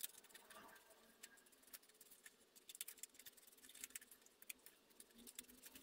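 Faint scissors snipping, cutting out a template, heard as a scatter of small clicks and rustles.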